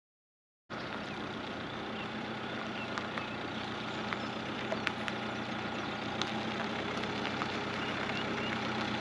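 Motorhome engine running as the van drives slowly across an asphalt lot toward the microphone, growing gradually louder, with scattered small ticks. The sound cuts in suddenly just under a second in.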